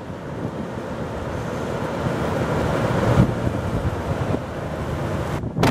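Strong storm wind rushing and buffeting the microphone, growing louder over the first three seconds.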